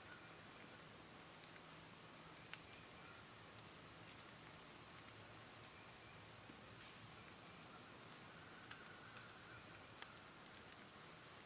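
Steady, high-pitched chorus of crickets and other insects droning without a break, with two faint clicks, one a few seconds in and one near the end.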